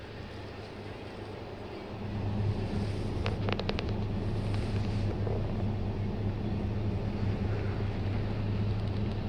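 A steady low hum inside the cabin of a 1999 Suzuki Grand Vitara comes up about two seconds in and holds. A quick run of about five clicks follows soon after.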